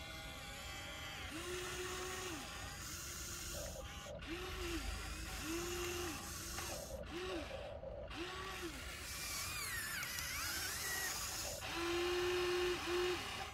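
Huina 1593 RC excavator's electric gear motors whining in a string of short bursts, each rising, holding and dropping away, as the boom, arm and bucket dig into dirt. The loudest two bursts come near the end.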